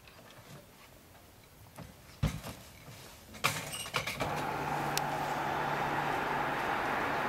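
A couple of knocks and metallic clicks, then from about four seconds in the steady noise of road traffic, with a low hum under it.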